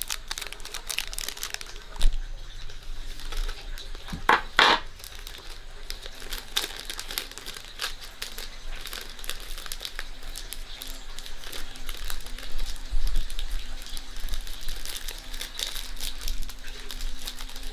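Crinkling and rustling with many small clicks, as of dry or plastic material being handled. A louder, sharper crinkle comes about four and a half seconds in.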